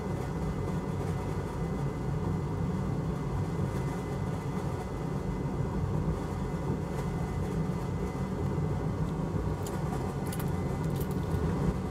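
Steady low whir of a fan or blower running at the soldering bench, with a faint steady whine above it and a few faint light ticks near the end.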